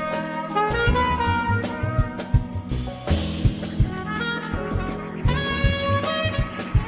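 Live jazz band playing: a horn carries a melodic line of quick notes over drum kit, bass and keys. A cymbal crash comes about three seconds in.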